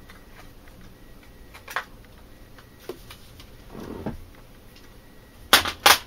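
Plastic TV remote being handled as its AA batteries are taken out: a few light plastic clicks and a soft rustle. Near the end come two sharp clacks about half a second apart as the remote is set down on the table.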